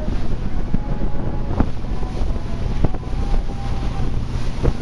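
Heavy wind buffeting the microphone aboard a moving boat, over a steady low rumble from the boat and the water. A few sharp knocks come through.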